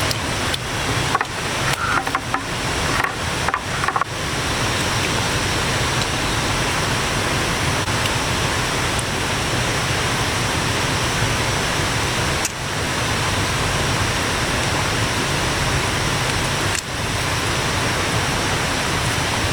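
Steady rushing of water, an even loud hiss, with a few short breaks in the first seconds and two brief dips later on.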